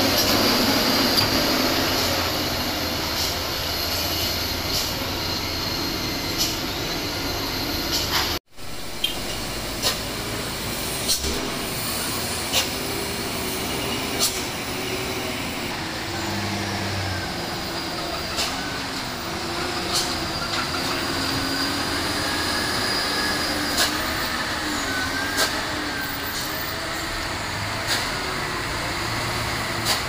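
Heavy trucks' diesel engines running slowly through a sharp bend, a steady rumble with a wavering engine note over traffic noise. It cuts out briefly about eight seconds in.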